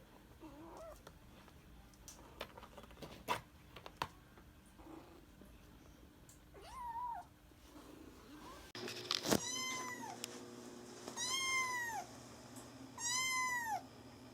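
Munchkin kitten meowing: one faint meow about seven seconds in, then three loud meows a second or two apart near the end, each rising and falling in pitch. A few light clicks come before them.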